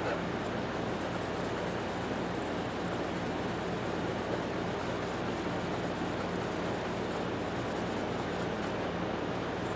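Fine 0000 steel wool rubbing over a cold-blued steel tap handle, heard as a scratchy hiss over a steady low hum.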